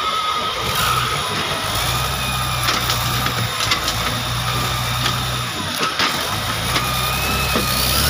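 Caterpillar 966C wheel loader's diesel engine running as the machine works its log grapple, with a wavering higher whine over the engine and a few sharp knocks.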